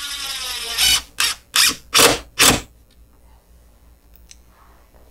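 Cordless drill-driver driving a screw into the CNC router bed to hold the workpiece down. It runs continuously for about a second, then gives four short trigger bursts as the screw is snugged tight, and stops under three seconds in.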